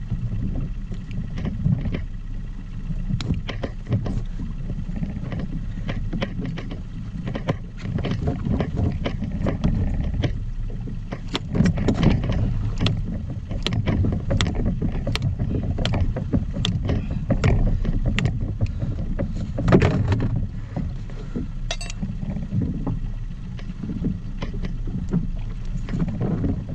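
Water slapping and splashing against the side of an inflatable boat as a hooked billfish is held alongside, over a steady low rumble of wind and sea. Many short splashes and knocks, busiest in the middle, with the loudest near the end.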